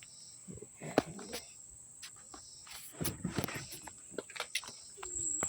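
Scattered clicks and knocks of hand work on a car's trunk latch: one sharp click about a second in, then a cluster of knocks and rattles a couple of seconds later. A steady high-pitched tone sits behind them.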